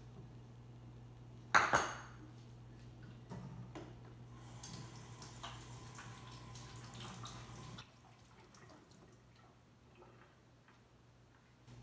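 A sharp clink of a dish or utensil about a second and a half in, ringing briefly. Then a kitchen tap runs into a stainless steel sink for about three and a half seconds as hands are rinsed under it, and shuts off suddenly, leaving faint handling noises.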